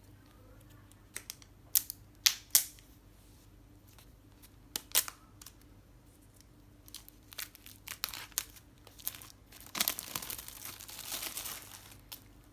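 Packaging being unwrapped: a few sharp crackles, then denser crinkling and a longer stretch of tearing near the end.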